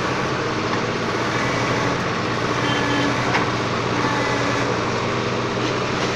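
Diesel engine of a SAME Agrolux 55 HP tractor carrying a backhoe loader, running steadily, with a faint higher whine that comes and goes and a couple of sharp clicks.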